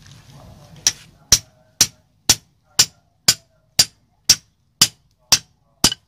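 A rusty steel tool knocking about eleven times, two blows a second, against the plastic insulator end cap of a washing-machine motor stator to knock the cap off for rewinding. Each is a sharp knock with a brief ring.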